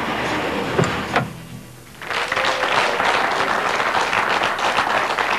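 Studio audience applauding, a dense steady clapping that starts about two seconds in, after the tail of a short stretch of music.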